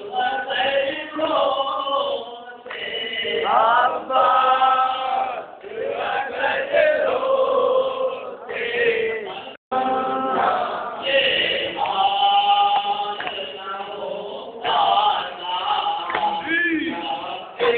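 A group of men chanting a nauha, the rhythmic Shia lament sung in unison at matam. The sound cuts out for a moment about halfway through.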